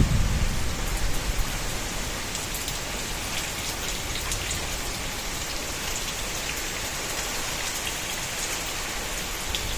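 Steady rain falling on hard surfaces: a dense hiss with scattered drop ticks. A low rumble dies away over the first second or two.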